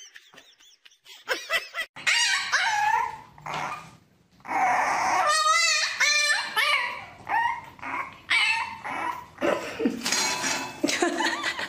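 A puppy yelping and whining in a string of short cries that rise and fall in pitch, starting about two seconds in.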